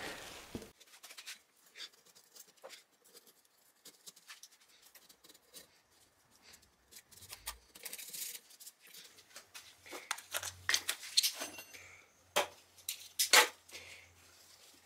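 Handling noises: plastic bags rustling and scattered sharp clicks and knocks of small metal parts, the loudest clicks in the second half.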